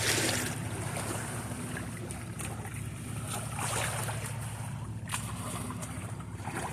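Seawater splashing and sloshing in surges, with wind, over a steady low mechanical hum.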